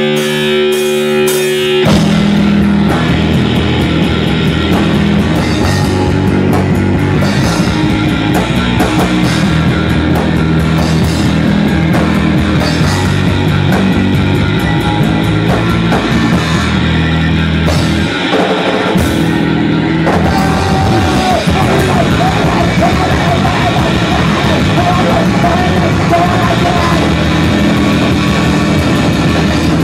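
Loud punk rock with distorted electric guitars and a drum kit. A sustained chord rings for about the first two seconds, then the full band comes in and plays on, with a brief break in the low end about two-thirds of the way through.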